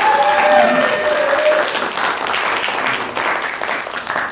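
Audience applauding, with a voice or two calling out over the clapping in the first second and a half. The applause dies away at the very end.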